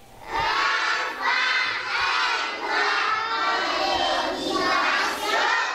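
A class of young schoolchildren calling out together in loud, rhythmic phrases, many high voices at once.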